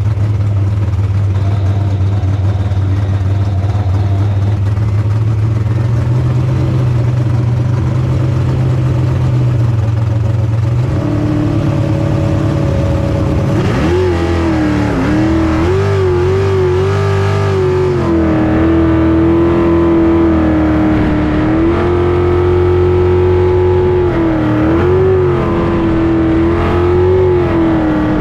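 Jet sprint boat's engine, heard from the cockpit: first running steadily at the start with its pitch creeping up, then revving hard about halfway through as the boat takes off, its revs rising and dipping repeatedly at speed.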